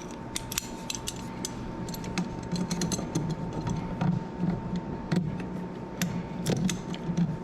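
Scattered small clicks and light scraping of an electrical outlet and its wires being handled and pushed into the wall box, over a faint steady tone.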